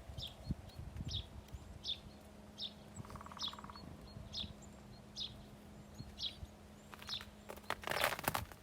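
A small bird chirping the same short, high call over and over, about once every three-quarters of a second, with one brief buzzy note partway through. Near the end comes a quick flurry of rustling and clattering.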